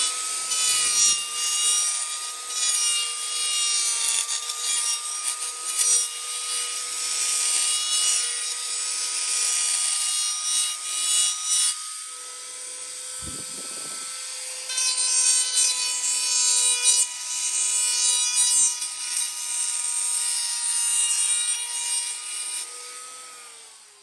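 An electric power tool working wood: a steady motor whine under a gritty rasping of the wood, which eases off briefly about halfway through. Near the end the motor spins down, its pitch falling.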